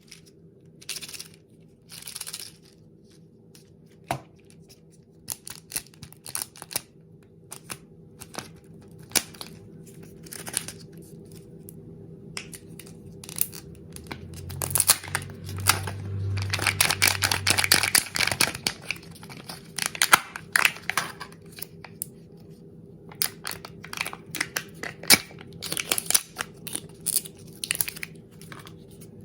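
Kinder eggs being unwrapped by hand: wrapper tearing and crinkling, with scattered short clicks and rustles, and a longer stretch of tearing about halfway through.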